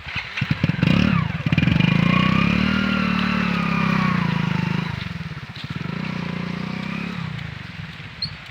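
Motorcycle engine revved up hard about a second in and held at high revs, dropping off around five seconds, revving again briefly, then dying away near the end.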